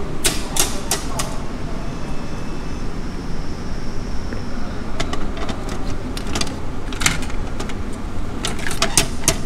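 Sharp clicks and clacks from a locker-style vending machine's glass compartment, with a cluster near the end as the small glass door is unlatched and pulled open to take the item out. Underneath is a steady low background rumble.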